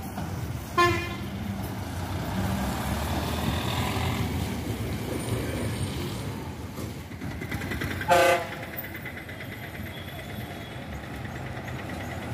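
Bus engine running as buses move through the stand, with two short horn blasts, one about a second in and a louder one about eight seconds in.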